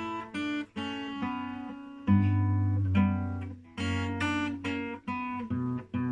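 Acoustic guitar strummed by a self-taught beginner, chords ringing and changing every half second to a second, with short gaps where the sound drops out between some chord changes.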